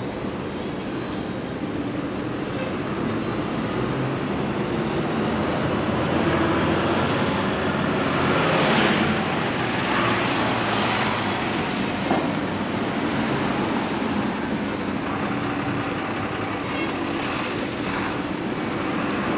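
Street traffic: steady vehicle noise, with one vehicle passing close and loudest about halfway through.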